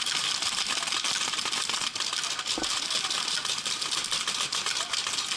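Many paintball markers firing at once: a dense, continuous crackle of rapid shots.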